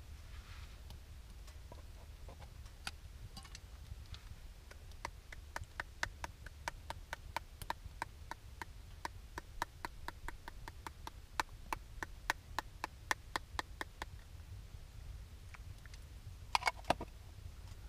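Light, even ticking, about three ticks a second, that starts a few seconds in and stops about two-thirds of the way through, followed near the end by a couple of louder clatters.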